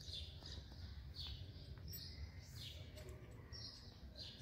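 Small birds chirping faintly and repeatedly: short chirps that fall in pitch, one every half second to a second, over a low steady background rumble.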